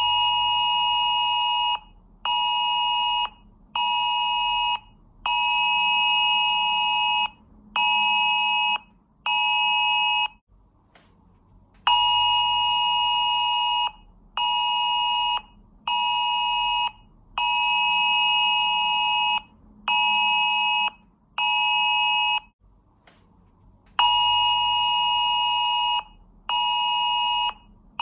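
UK Emergency Alert test tone: a harsh, loud alarm tone beeping in a long-short-short pattern. It plays that pattern twice, pauses for about a second and a half, then starts again.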